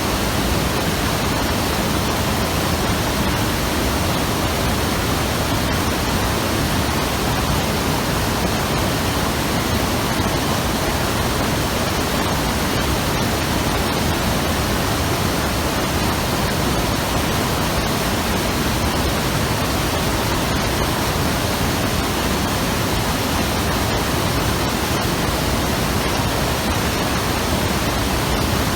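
Mountain river rushing over rocks, a steady full roar of white water.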